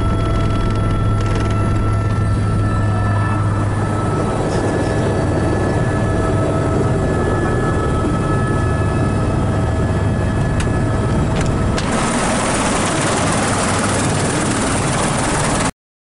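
Helicopter engine and rotor running on the ground after landing, heard from inside the cabin: a steady low drone with several whining tones, turning to a brighter hiss about 12 s in. It cuts off suddenly near the end.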